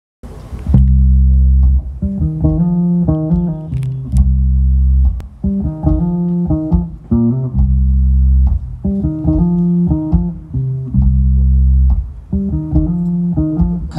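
Live band playing an instrumental introduction led by electric bass: long held low notes alternate with a short melodic figure, the phrase repeating several times.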